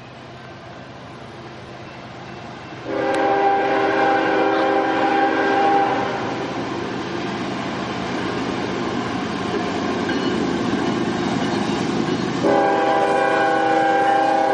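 Diesel freight locomotive's air horn sounding as the CSX train approaches: one blast of several notes at once about three seconds in, lasting about three seconds, and a second blast starting near the end. Between the blasts the engine and wheels rumble, growing louder as the train draws near.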